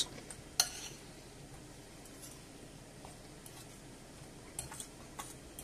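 Metal fork stirring a mixture of beaten egg, milk and grated cheese in a glass bowl, faint, with a light click of the fork against the glass about half a second in and a few more near the end.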